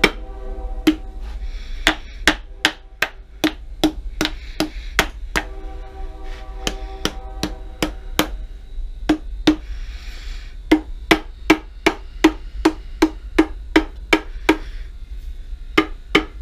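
Small hammer tapping repeatedly on the cast-iron lathe apron to loosen a stuck cover casting. Sharp knocks come two to three a second, sometimes in quicker runs, with brief pauses.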